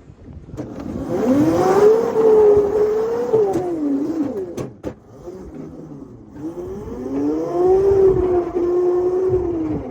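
A locomotive running fast on its track, its pitched whine rising, holding and falling twice as it speeds by, with a few sharp clicks in between.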